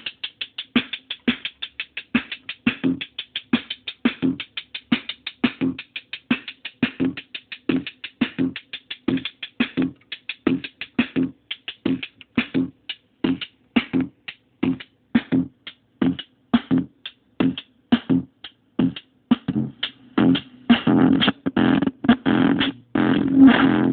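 Korg Monotribe analog synth running a fast repeating drum pattern, each hit carrying a pitched bass tone, played through a circuit-bent Yamaha computer speaker whose bent gain/distortion knobs make it crunchy. Near the end the tone thickens into a dense, almost continuous distorted sound as the knobs are turned.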